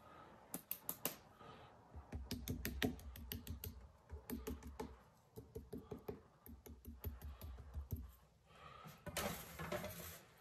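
Foam brush dabbing paint onto a canvas board: quick irregular taps, several a second, in two runs, with dull knocks on the board beneath. A brief rush of noise comes near the end.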